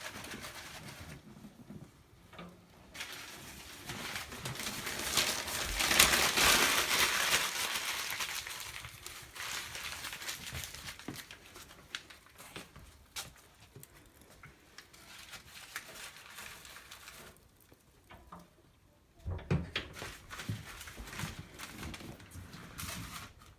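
Freshly lit wood fire catching in a cast-iron stove: birch and larch kindling and paper burning with scattered crackles. A swell of rushing flame noise peaks about five to eight seconds in, and a few dull knocks come later on.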